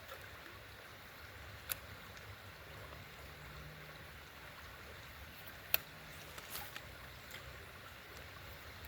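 Faint outdoor background by a creek: a soft steady hiss and low hum, broken by a few sharp clicks, the loudest about six seconds in.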